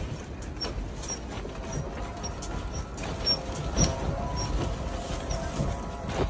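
Building shaking in a strong earthquake: a low rumble with rattling, knocking and creaking from the window and frame, and a faint high squeak repeating two or three times a second.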